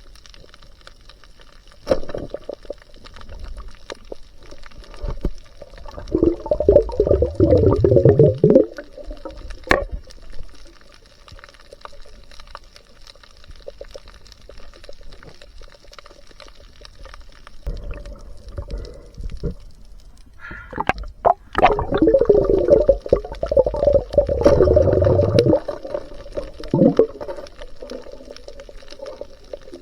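Water churning and bubbling around a camera in the sea, in two loud spells of a few seconds each, with a low rumble in between.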